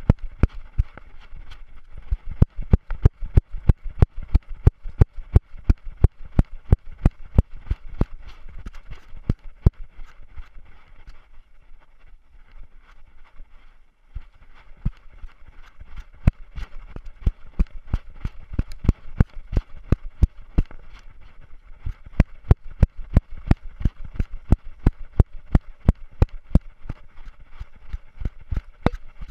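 Rhythmic knocks and thumps, about three or four a second, from a dog running with a GoPro Hero3 Silver on its collar, the camera jolting with each stride. The knocks thin out for a few seconds near the middle, then pick up again.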